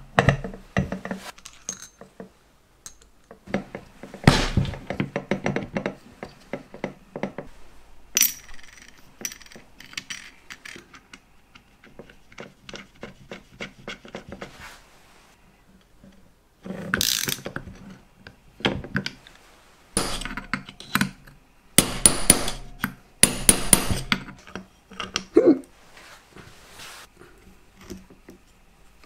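Hand tools and metal engine parts being worked on a bench: an irregular series of clicks, knocks and clatters, with dense runs of quick clicks in a few places.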